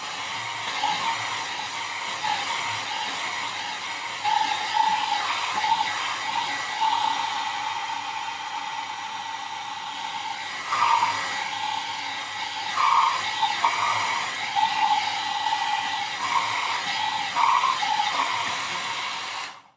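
Handheld hair dryer blowing steadily on the freshly worked clay and paint, its whine wavering slightly, then switched off abruptly near the end.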